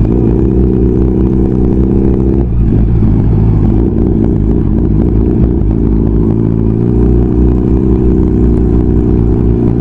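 Honda CB650R's inline-four engine running at low road speed on a rough track. Its note changes about a quarter of the way in and again a little past halfway.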